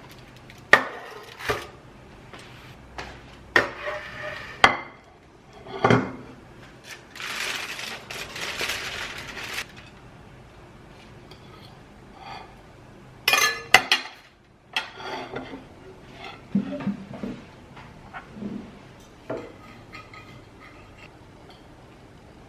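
Kitchen dishes and cutlery clinking and knocking irregularly, with a steady hiss for a couple of seconds about seven seconds in.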